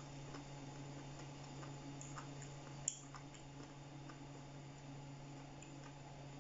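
Faint eating sounds: quiet clicks and mouth noises of someone chewing fried chicken, with one sharp tick about three seconds in, over a steady low hum.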